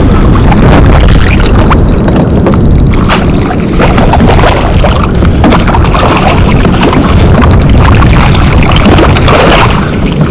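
Loud wind buffeting the microphone, a steady low rumble with scattered knocks and splashes from the kayak.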